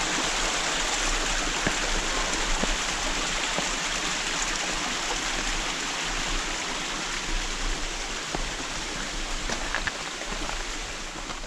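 Water running over a rock slab in a mountain brook: a steady rushing that slowly fades over the last few seconds. A few faint knocks sound through it.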